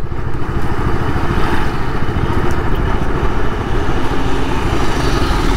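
Motorcycle engine running steadily while riding, with road noise.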